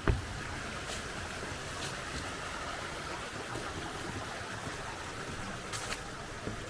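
Valley stream running steadily, a continuous rush of water, with one sharp thump just at the start and a few faint clicks.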